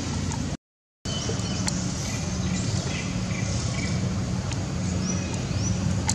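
Outdoor ambience: a steady low rumble like distant traffic, with short high chirps and a couple of quick rising whistles from birds over it. The sound drops out completely for about half a second near the start.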